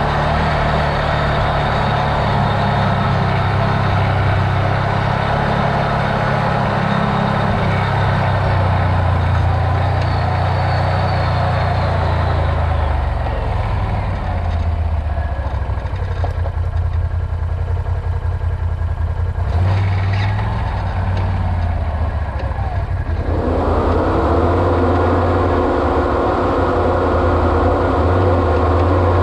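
Off-road vehicle engine running steadily, its low drone continuous throughout. A higher, steadier layer comes in about 23 seconds in.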